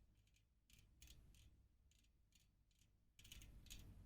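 Faint rattling ticks from a hand-spun 50mm carbon rear road-bike wheel. It sounds like something loose inside the rim dropping to the lowest point as it turns. There is a short run of ticks about a second in and louder rattling near the end.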